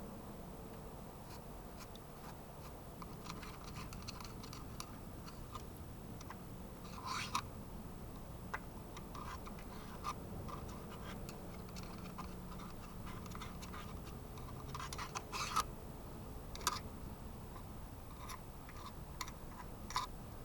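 Light handling noises: scattered faint clicks and four short scrapes, the loudest about fifteen seconds in.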